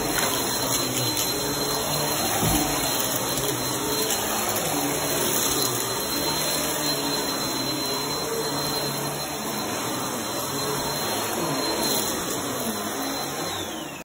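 Bagless upright vacuum cleaner running steadily while pushed over carpet, with a thin high whine over the even motor noise.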